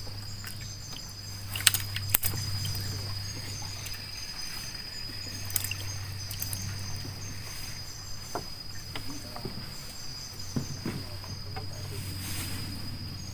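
Insects chirring steadily on one high pitch over a low steady hum. A few sharp knocks and clicks come in the first six seconds.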